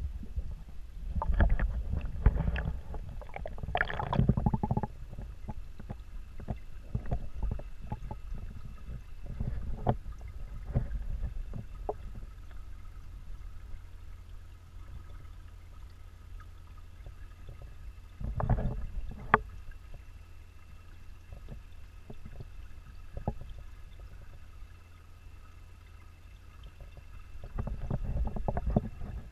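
Underwater sound of a garden pond picked up through a GoPro's sealed waterproof housing: a low, muffled rumble of water with bursts of clicks and knocks a few seconds in, again about two-thirds of the way through, and near the end.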